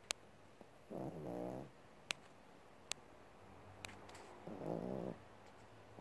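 Sleeping animal snoring: two pitched snores, each under a second and about three and a half seconds apart, with a few sharp clicks in between.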